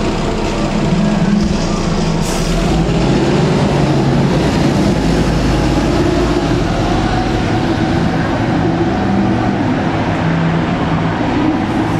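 Diesel engine of a bus pulling up and running close by: a steady, loud engine noise, with a deeper low rumble for the first few seconds.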